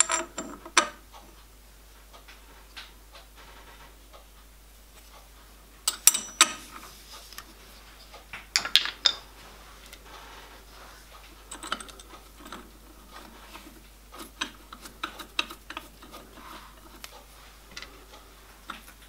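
Scattered metallic clinks and taps as small steel parts, a shaft and gear wheel, are handled and fitted in a lathe's four-jaw chuck. The louder clusters come about six and nine seconds in.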